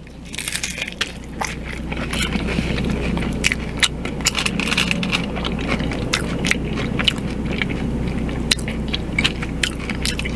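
Close-up biting and chewing of a crunchy hard-shell taco, the shell cracking into many sharp crunches.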